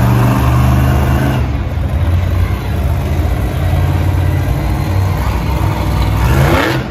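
Monster Jam truck's supercharged V8 engine running at a steady, loud rumble as the truck drives across the dirt arena, then revving up near the end.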